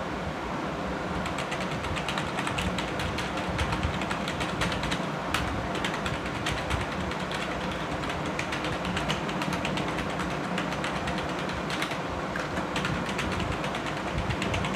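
Computer keyboard being typed on: a rapid, continuous run of keystroke clicks as lines of random letters are typed.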